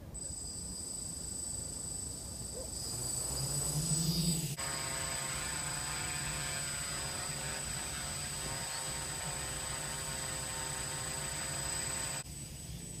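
Quadcopter's electric motors and propellers spinning up to take off, then a steady buzzing drone with a high whine as it hovers. The sound rises over the first few seconds and changes abruptly about four and a half seconds in and again near the end.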